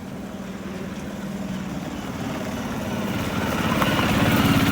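A motor vehicle engine running with a steady pulsing drone, growing louder near the end.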